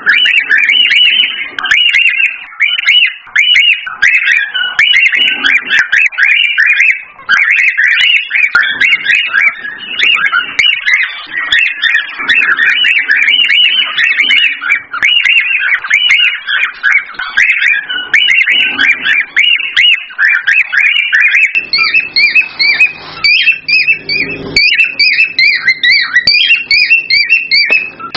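Cockatiels whistling and chirping in a rapid, unbroken run of short notes: the excited song that is played to pet cockatiels to stir them to breed. A little past three-quarters of the way through, the notes climb higher and a low hum comes in under them.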